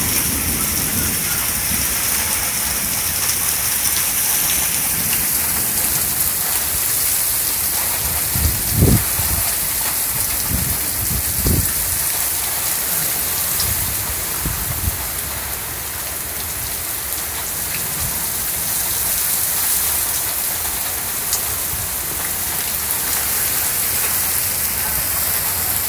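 Heavy rain pouring down in a severe thunderstorm, a steady hiss, with a few short low rumbles about nine and eleven seconds in.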